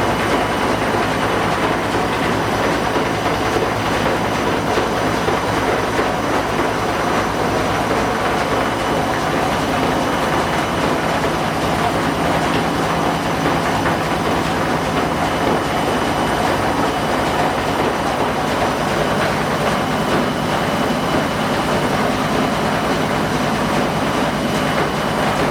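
Washing machine running hard in its spin cycle: a loud, steady rumble with a faint high whine that does not change.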